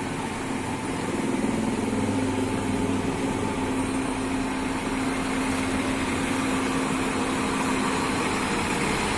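A coach bus's diesel engine running at low revs as the bus rolls slowly past at close range, a steady drone.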